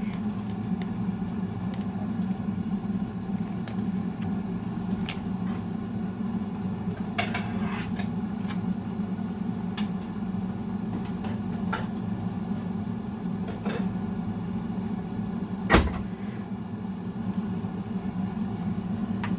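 Air fryer's fan running with a steady low hum, with scattered light clicks and one sharp knock near the end from kitchen handling.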